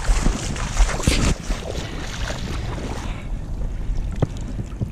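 Wind buffeting the microphone with a steady low rumble and rustling from the camera being handled. A few sharp knocks come near the end.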